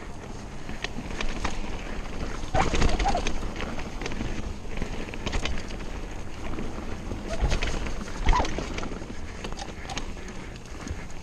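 Mountain bike riding fast down a dirt forest trail: steady tyre and wind rumble with frequent rattles and knocks from the chain and frame over bumps, loudest about two and a half seconds in and again about eight seconds in.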